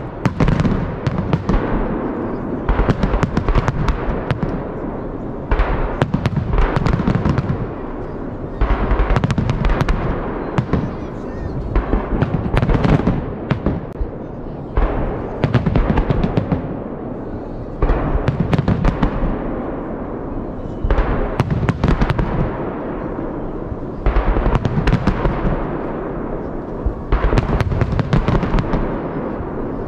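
Holiday fireworks salute: volleys of shells fired and bursting in clusters of sharp bangs every two to three seconds, with continuous crackling and rumble between the clusters.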